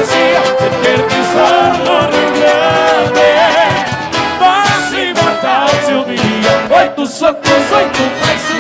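Live gaúcho folk music: an accordion and guitars playing a steady dance rhythm, with a singer's held, wavering notes over them.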